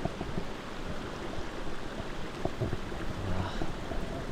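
Mountain stream water running, a steady rushing wash.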